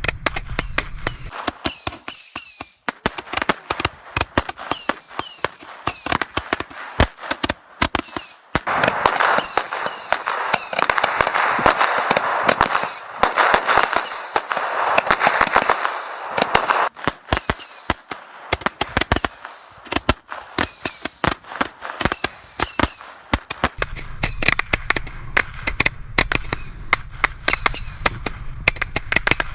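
A bundle of twelve Roman candles firing together: a rapid, uneven string of pops mixed with many short falling whistles. For several seconds in the middle it thickens into a dense crackling hiss, then thins back to scattered pops.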